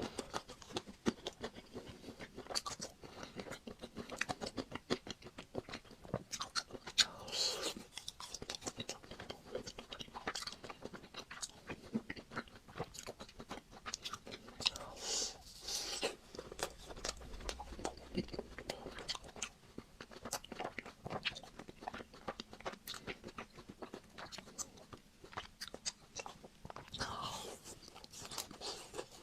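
Close-miked eating of a Magnum ice cream bar: its chocolate coating cracking and crunching between the teeth, with chewing throughout. A few longer, louder crunches come about a quarter of the way in, about halfway, and near the end.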